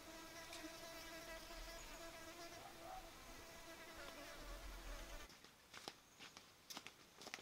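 A fly buzzing faintly in flight, a steady slightly wavering drone that cuts off about five seconds in. A few faint sharp clicks follow.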